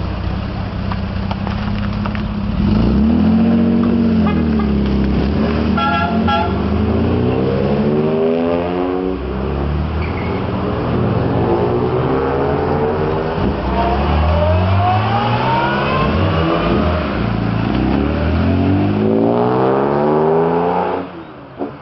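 Jaguar E-type sports car engines accelerating past, revs rising several times as they pull away through the gears, then cutting off suddenly near the end.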